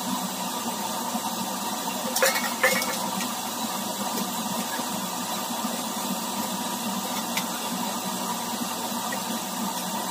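Water running from a tap onto steel utensils as they are washed, with two metallic clinks of steel vessels a little over two seconds in.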